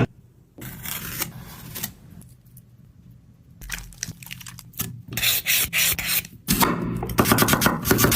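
Irregular rubbing and scraping strokes of food being prepared by hand. They are sparse at first and come thick and fast in the second half.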